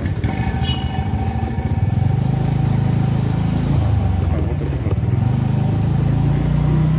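Motor scooter's engine running under the rider as it rides along, its note rising and falling with the throttle, with road and wind noise.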